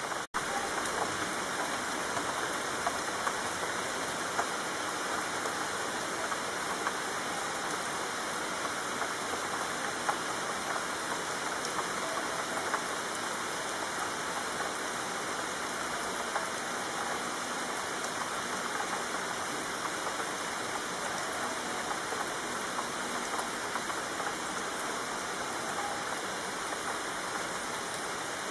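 Steady heavy rain falling: an even hiss with many small drop ticks in it. It cuts out for an instant just after the start.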